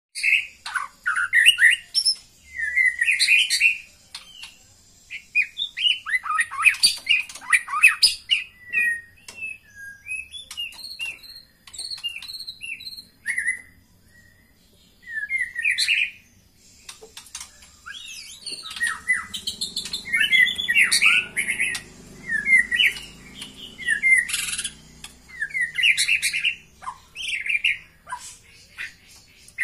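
White-rumped shama (murai batu) calling in bursts of quick sharp chirps and harsh squawks, with short pauses between runs. It is the female's lure call, used to bring a male into breeding condition.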